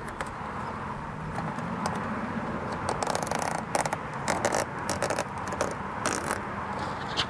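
Hand work on a door screen: a run of short scrapes and rattles, thickest in the middle seconds.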